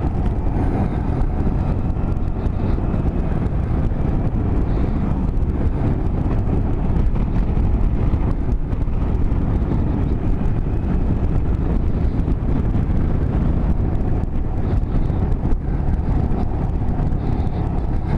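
Motorcycle engine running steadily while riding at road speed, with a deep rumble of wind and road noise.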